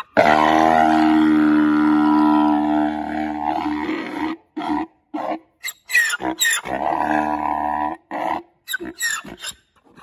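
Grevy's zebra braying: one long, hoarse, drawn-out call, then a string of shorter rasping gasps with squealing rises, a second shorter held call, and a few more gasps near the end.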